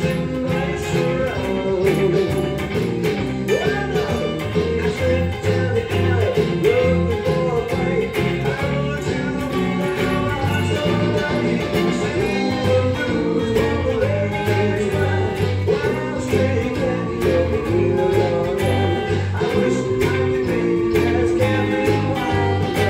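Fender Telecaster electric guitar through a digital delay pedal and amp, played along to a backing track with drums, bass and singing, in a steady swung rhythm.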